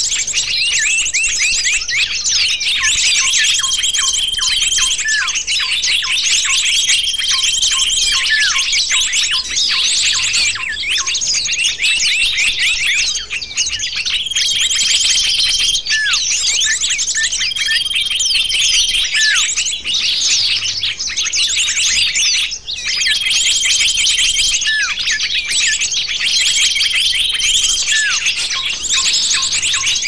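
Bird-lure recording of many small songbirds chattering and chirping densely and without pause, mixed so it sounds like an agitated flock; a long, steady, high whistled note of about a second recurs every few seconds over the chatter.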